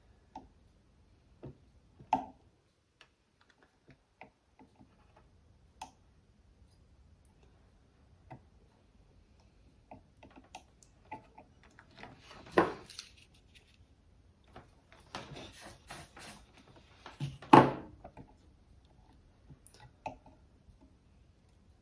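Scattered light clicks and taps of tools and small parts being handled at a workbench during circuit-board repair, with two louder sharp clicks about halfway through and near the end.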